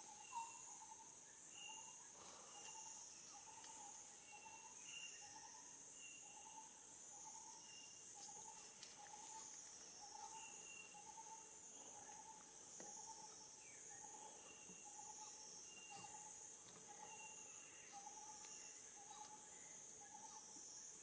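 Faint forest insect chorus: a high buzzing that swells and fades in an even pulse about once a second, over a run of short, low call notes repeated about twice a second.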